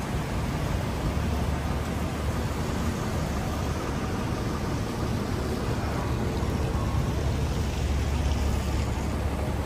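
Rain falling on an umbrella, with a steady low rumble of city street traffic underneath.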